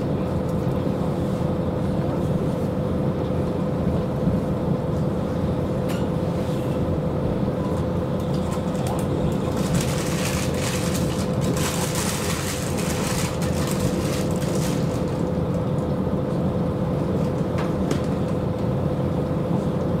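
Inside a KiHa 40 diesel railcar rolling slowly into a station: a steady rumble of the diesel engine and running gear with a constant hum. A hiss comes in about ten seconds in and fades out some five seconds later.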